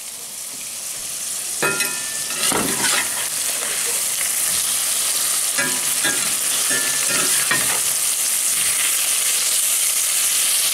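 Venison backstrap pieces sizzling in butter and olive oil in a cast-iron skillet on a wood cook stove. The sizzle grows louder over the first few seconds, and a metal spatula scrapes and clatters against the pan several times as the pieces are turned.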